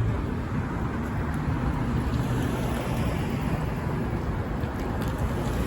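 Wind buffeting the microphone: a steady rushing noise, heaviest in the low end.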